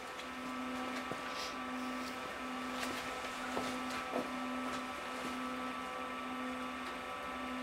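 Steady hum from a rack of powered-up QSC PLX power amplifiers, with a low tone that pulses at a regular pace, fainter overtones above it, and a few faint clicks.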